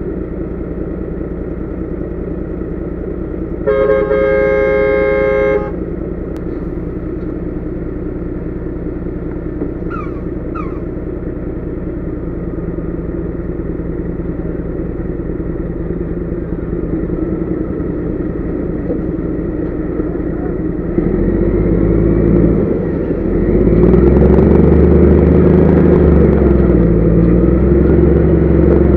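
Heavy low-loader truck's diesel engine running steadily, heard from inside the cab, with a loud horn blast of about two seconds a few seconds in. About twenty seconds in, the engine revs up and gets louder, its pitch rising and falling.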